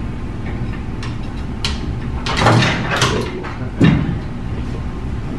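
Metal clanks and rattles from a chain hoist's chain and a steel engine-lifting bracket being rigged, a handful of separate knocks with the loudest about four seconds in, over a steady low hum.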